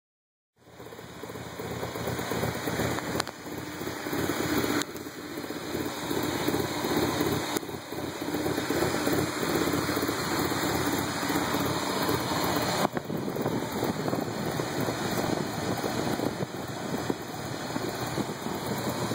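1995 Ford Probe GT's 2.5-litre V6 idling roughly, the sound uneven and fluctuating. It starts abruptly about half a second in.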